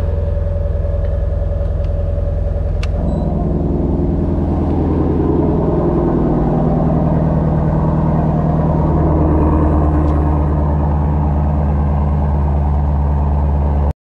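Shelby GT350's 5.2-litre flat-plane-crank V8 idling steadily, with no revving. The sound grows fuller and louder about three seconds in, and a single short click comes at about the same moment.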